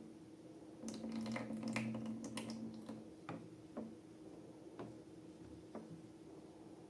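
Slime being squished and worked by hand: a run of wet, sticky clicks and pops about a second in, lasting about two seconds, then a few single pops.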